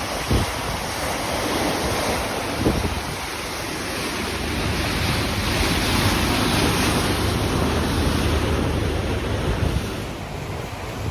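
Open-ocean waves rushing and washing, with wind buffeting the microphone; the rush swells in the middle and eases off near the end.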